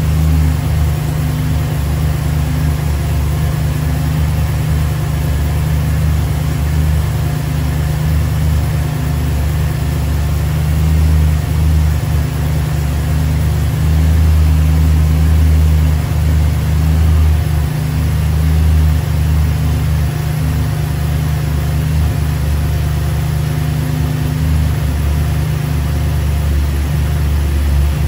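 2012 BMW E92 M3's S65 4.0-litre V8 idling steadily with the bonnet open, the cold engine warming up after being started for the first time in six months.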